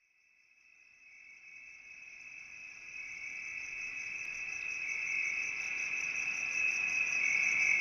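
Crickets trilling, a steady high-pitched pulsing chirr that fades in about a second in and grows louder throughout.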